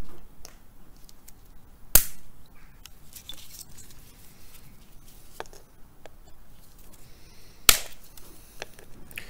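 Side cutters snipping off the protruding metal ends of plastic-welder hot staples: two sharp snaps, about two seconds in and near the end, with a few faint ticks between.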